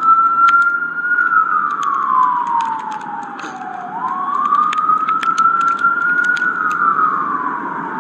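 Emergency vehicle siren on a slow wail, its pitch climbing and then sliding down, two full cycles, with scattered sharp clicks over it.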